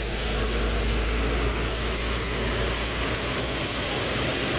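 Steady road traffic on a wet road, with a motorcycle and a heavy truck passing: an even hiss with a deep rumble under it that eases about three and a half seconds in.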